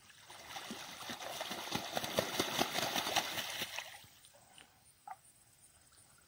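Water splashing and churning at the pond's edge as Pekin ducks and Danish geese swim and dabble, a dense crackle of small splashes that fades out about four seconds in.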